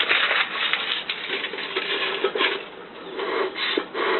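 Bee smoker's bellows being pumped, a run of rough puffs of air that settles into a quick regular rhythm near the end, fanning fuel that is not yet burning well.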